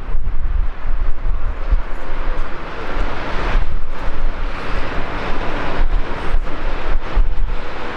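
Jet engines of a Boeing 737-700 (CFM56-7B turbofans) running at taxi power as the airliner rolls toward the runway, a steady rushing jet noise. Gusts of wind buffet the microphone with an uneven low rumble.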